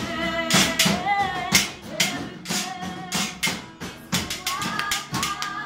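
A group singing a gospel praise song together, accompanied by sharp percussive hits that come about twice a second and stand out as the loudest sounds.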